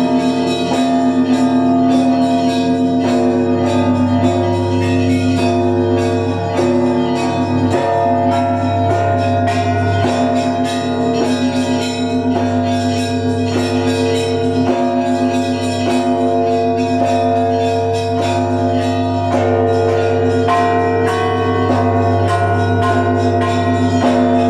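Russian Orthodox church bells being rung together: quick, dense strikes on small treble bells over the sustained tones of larger bells. A deep bass bell is struck again every few seconds.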